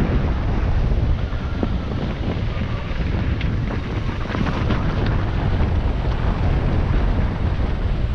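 Wind buffeting the microphone on a fast mountain-bike descent, under a steady low rumble of tyres on rocky trail, with scattered clicks and knocks of the bike rattling over rocks.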